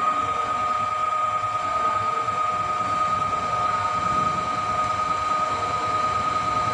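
On-car brake disc lathe running and spinning the car's brake disc on its hub, with a steady high whine. The machine is set up to resurface the disc.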